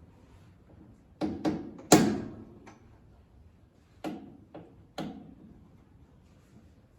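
Irregular sharp metal knocks and clanks from tools working on the tractor's steering parts, seven in all, the loudest about two seconds in with a short ringing tail.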